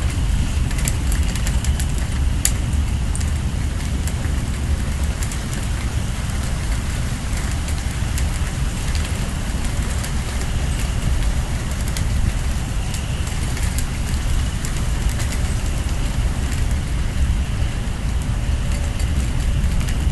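Storm wind buffeting the microphone in a steady low rumble, with rain pattering and scattered sharp drop clicks.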